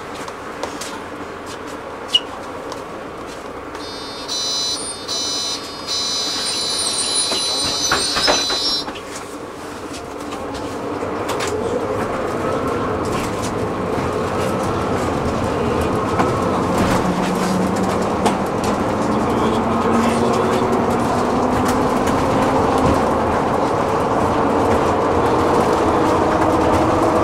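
Inside a city bus: a high-pitched electronic beeping sounds for a few seconds, then the bus moves off, its drive running louder with a hum that rises in pitch as it gathers speed.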